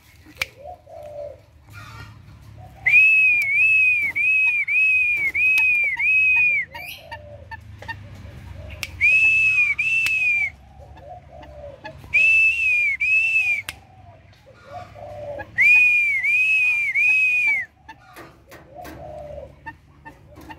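Four runs of loud, high whistled notes, three to seven short arching notes in each run at about three a second. Between the runs a male watercock in its cage gives low, hollow, coo-like calls.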